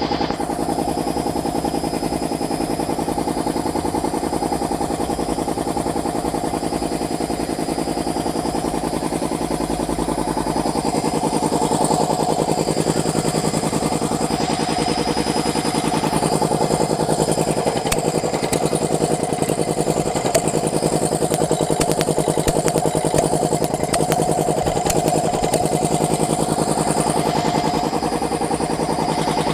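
A 3090 air compressor running steadily under test, with a fast, even pulsing and a steady hum; it grows slightly louder about twelve seconds in.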